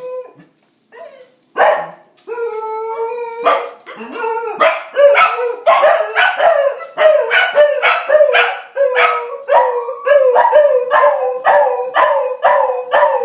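Corgis howling like a siren: a long held howl starts about two seconds in, joined by sharp barks about twice a second through the second half.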